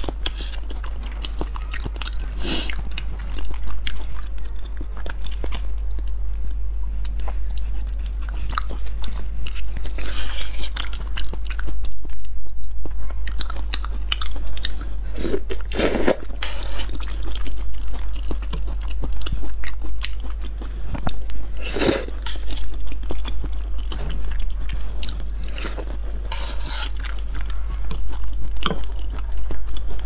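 Close-miked chewing of raw salmon sashimi: soft wet mouth sounds with frequent lip smacks and clicks, a few louder smacks about halfway through and again about two-thirds in. A steady low hum runs underneath.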